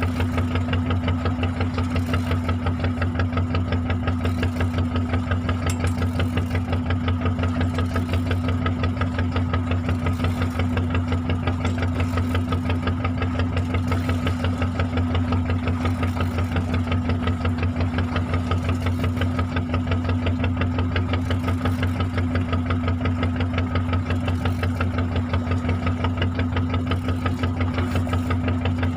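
Fishing boat's engine running steadily with a rapid, even beat and a deep hum that does not change.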